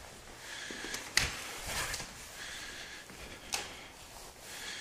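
A door being opened: two sharp clicks about two and a half seconds apart, the first the louder.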